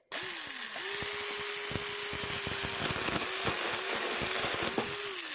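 Cordless 24V mini chainsaw cutting through a small branch: a steady electric motor whine with a rapid crackle of the chain biting the wood. The pitch sags as the chain takes the cut just after the start, and again near the end.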